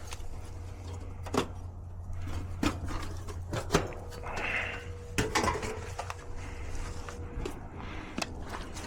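Scattered clicks, knocks and light clattering of tools and metal parts being handled while working on an air-conditioning unit's capacitor, over a steady low hum. A faint steady tone sounds for a few seconds in the middle.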